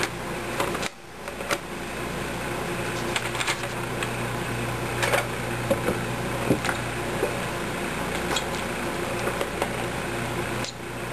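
A steady mechanical hum with hiss, like a fan or electrical hum, overlaid by scattered sharp clicks and knocks. The sound drops out briefly about a second in and again near the end.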